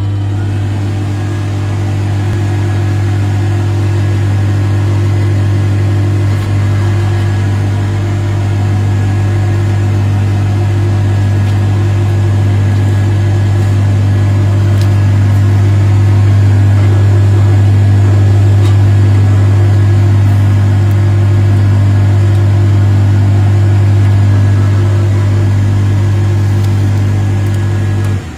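Mini benchtop polishing machine running, its spindle motor and dust-suction fan making a loud, steady low hum. It cuts off suddenly near the end as it is switched off.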